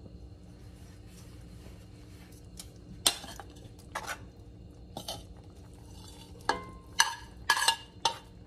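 Metal tongs clinking against a ceramic plate and a cast-iron skillet while pieces of browned pork are moved into the sauce. About seven scattered clinks and taps, a few ringing briefly, coming closer together near the end.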